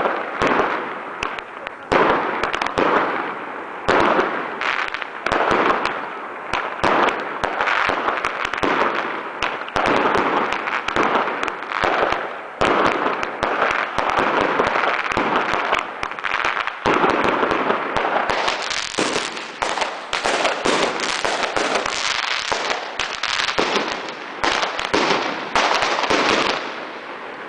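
Fireworks display: a dense, continuous barrage of sharp bangs and crackling bursts, growing busier in the second half.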